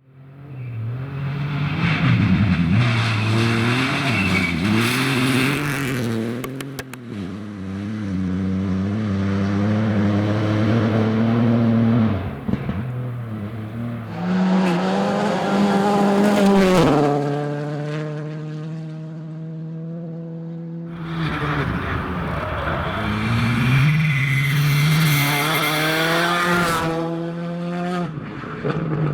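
Rally cars at full attack on a gravel stage, passing one after another: engines revving hard, with sudden drops in pitch at gear changes and lifts, and a few sharp cracks about six to seven seconds in.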